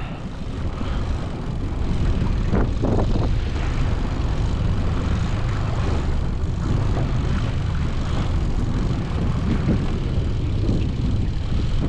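Outboard motor running steadily, a low drone mixed with wind on the microphone.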